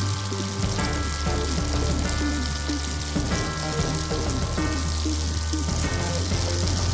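Food sizzling on a hot grill: a steady, dense hiss, with background music and a steady bass line beneath it.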